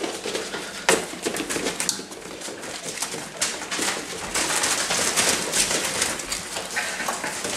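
Greater Swiss Mountain Dog puppies nursing: small squeaks and grunts from the pups, with many short clicks and the rustle of newspaper under their paws as they scramble at their mother's belly.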